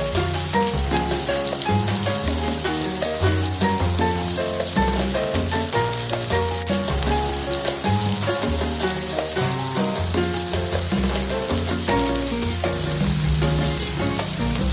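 Food sizzling and crackling in hot oil in a frying pan. Background music with changing bass notes plays over it.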